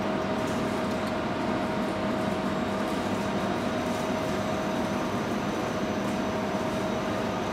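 Automatic side sealer shrink packing machine running, giving a steady whirring hum with one constant tone through it.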